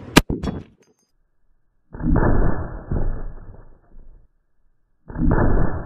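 A .50-calibre rifle fires one shot: a sharp crack that dies away within about half a second. About two seconds later, and again near the end, the shot is heard twice more, duller and muffled, each a sudden blast followed by a rumble of about two seconds.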